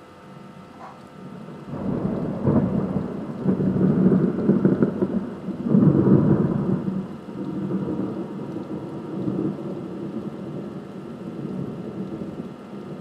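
Thunder rumbling: a low rolling peal that swells up about two seconds in, peaks twice and slowly fades away, over the steady hiss of rain.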